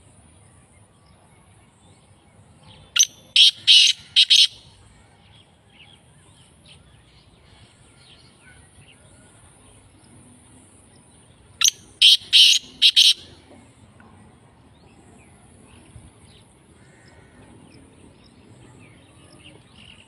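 Black francolin (kala teetar) calling twice, about three seconds in and again about twelve seconds in: each call is a loud phrase of about six short, rapid notes lasting about a second and a half. Between the calls, faint scattered chirps of other birds and a faint steady high hiss.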